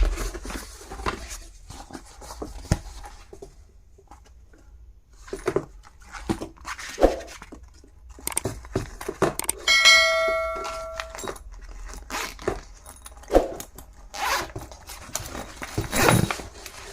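Stationery items being handled: scattered clicks, taps and scrapes, with a short metallic ringing tone about ten seconds in.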